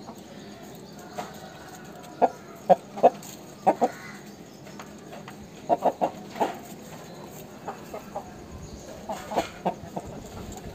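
Aseel chickens clucking: short, sharp clucks in small groups of two or three, about a dozen in all, with pauses between the groups.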